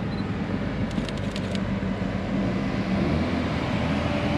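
Cars rolling in at low speed, with a low engine rumble that grows a little louder near the end as a lowered Kia Stinger drives up.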